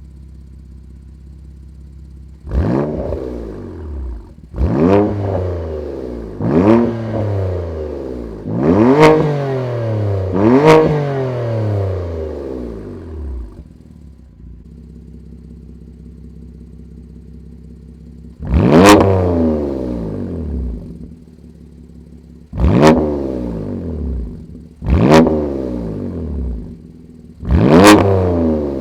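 BMW M2 Competition's twin-turbo straight-six, on a Milltek OPF-back exhaust, idling and blipped in nine quick stationary revs. Each rev rises sharply and falls back to idle: five in quick succession, a pause at idle, then four more.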